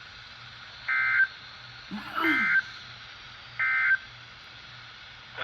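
Weather radio playing the EAS end-of-message: three short bursts of SAME digital data tones, about a second apart, over steady receiver hiss. They signal that the severe thunderstorm warning broadcast has ended.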